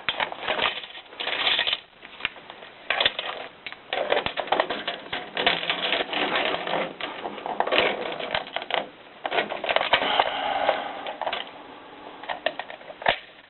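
The coil spring of an AK-47 75-round drum magazine being worked by hand back into its coil inside the drum: irregular clicking, scraping and rattling against the drum housing.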